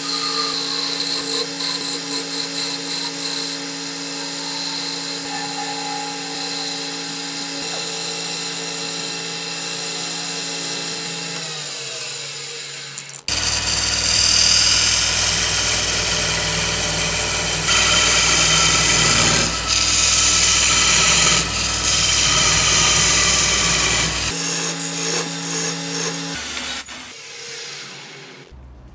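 Wood lathe running with a steady motor hum while a hand-held turning tool scrapes and cuts the spinning wood of a goblet. The cutting gets louder about halfway through, and a single sharp knock comes near the end before the sound drops away.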